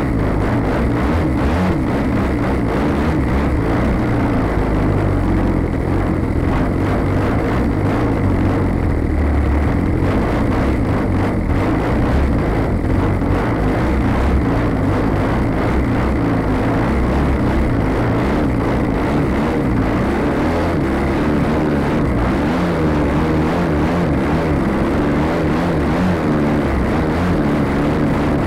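Engine and propeller of a small aerobatic plane running at power in flight, heard as a steady, loud, low-heavy rush mixed with wind noise on the wing-mounted camera.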